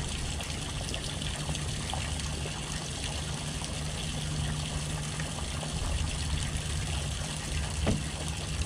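Water lapping and trickling against a boat hull, with a low steady hum underneath and a brief knock near the end.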